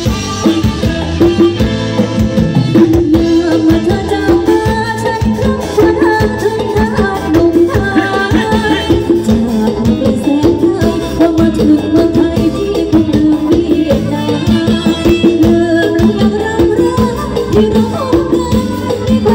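Live ramwong dance music from a band with a drum kit keeping a steady beat, and a woman singing the melody into a microphone.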